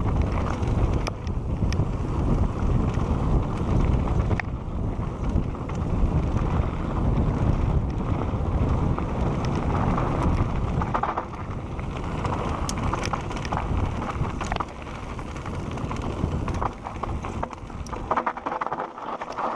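Wind buffeting an action camera's microphone on a fast mountain-bike descent, over tyres rolling on dirt singletrack and short clicks and rattles from the Santa Cruz Bronson bike. The wind rumble eases about eleven seconds in.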